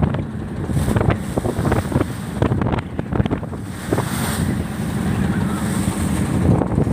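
Wooden fishing boat running under engine power through the sea, its hull slapping and splashing through the waves in irregular bursts of spray, with wind buffeting the microphone.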